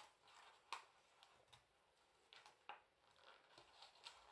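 Near silence, with a few faint taps and rustles of paper and card being handled.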